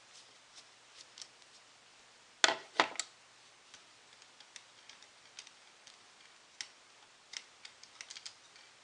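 Clicks and light ticks of hands working a propeller off a drone motor held in spring-loaded motor grip pliers: three sharper clicks about two and a half seconds in, then scattered faint ticks.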